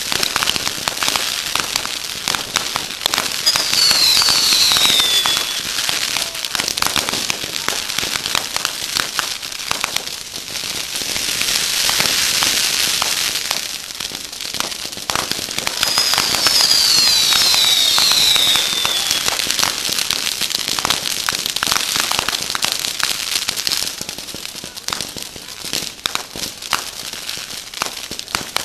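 Fireworks going off in a dense, continuous run of crackling and popping, swelling louder in places. Twice, about four seconds in and again past the middle, a cluster of several whistles slides down in pitch together.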